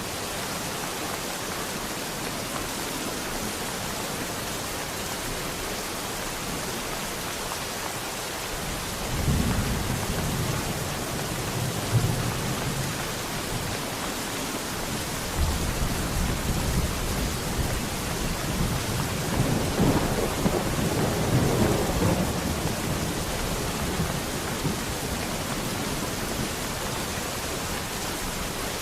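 Steady rain falling, with thunder. A low rolling rumble builds about nine seconds in, and a longer one starts around fifteen seconds and swells to its loudest a few seconds later before fading back into the rain.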